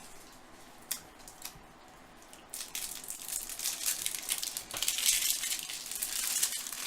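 Crinkling foil trading-card pack wrappers and cards being handled. After two small clicks, a dense crackling starts about two and a half seconds in and keeps going.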